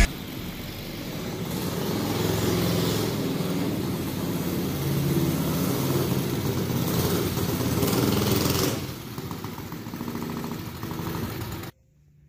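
Small minibike engine running as it is ridden, its pitch wavering up and down. It cuts off suddenly near the end.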